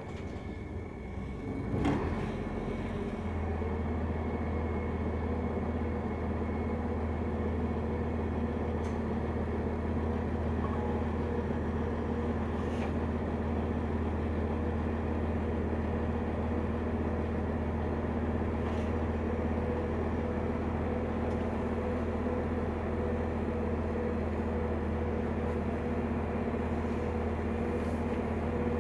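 Steady low hum of a standing train's machinery, setting in after a knock about two seconds in and then holding even, with a few faint ticks.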